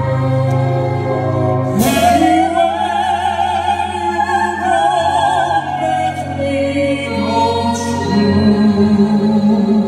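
Two singers in a musical-theatre duet over backing music: a woman's voice comes in about two seconds in and holds a high note with wide vibrato, and a man's lower voice comes in near the end.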